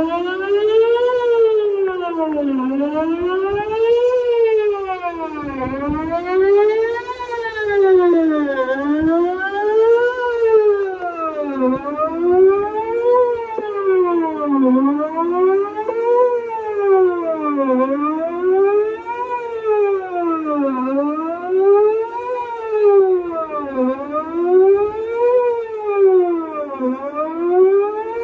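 Whelen electronic outdoor warning siren, a pole-mounted stacked speaker array, sounding a wail. Its pitch rises and falls in a steady cycle about every three seconds.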